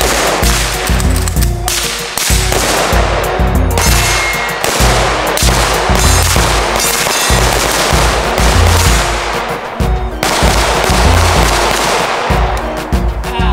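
Rapid, overlapping gunshots from several shooters firing AR-15-style rifles at once on a firing line, over background music with a steady bass beat.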